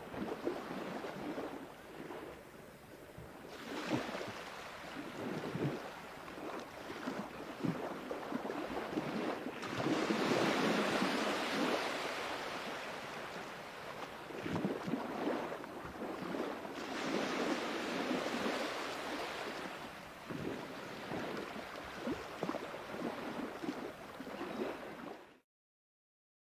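Sea waves breaking and washing ashore, surging and ebbing every few seconds, with the largest surge about ten seconds in. The sound cuts out abruptly to silence about a second before the end.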